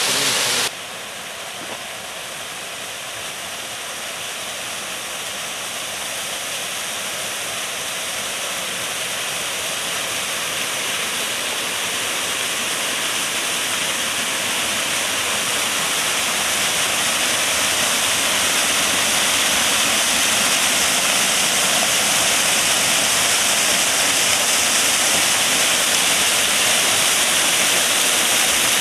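Spring-fed waterfall pouring over a rock face into a shallow pool, running at an unusually heavy flow: a steady rush of falling and splashing water. The level drops suddenly under a second in, then grows gradually louder.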